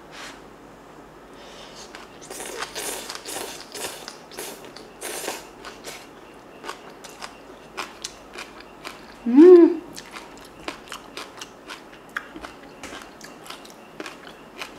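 Close-miked chewing of a mouthful of soybean-sprout rice: crisp crunching clicks, thickest in the first half, then thinning to scattered wet clicks. About halfway through, a short hummed 'mm' that rises and falls in pitch, the loudest sound.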